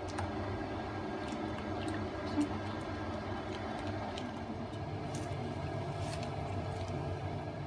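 Pot of soup cooking on a gas stove, a steady low rushing hum, as beaten egg is poured in and stirred with a spoon that taps against the pot now and then.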